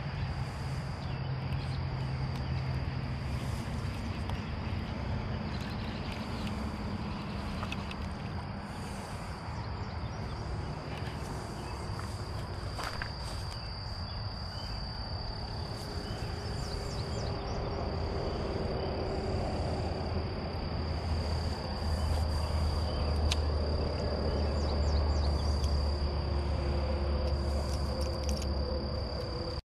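Steady high-pitched insect drone over outdoor ambience, with a low hum underneath that grows louder in the last third and a few scattered light clicks.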